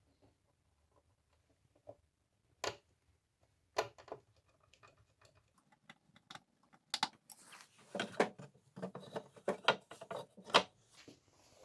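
Irregular light knocks and clicks of small hard objects being handled, sparse at first and then a dense clatter in the second half, with one sharper knock near the end. The saw is not running.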